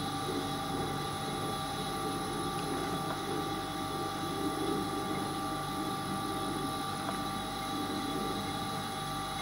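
Steady machine hum made of several held tones over a rough low drone, with a few faint ticks about 2.5, 3 and 7 seconds in.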